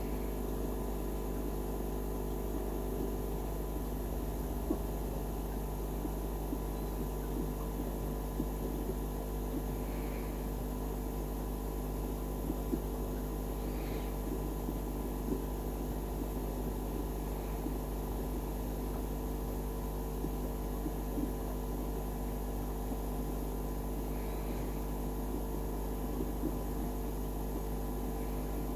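Steady hum of aquarium equipment, holding several constant tones, with a few faint ticks now and then.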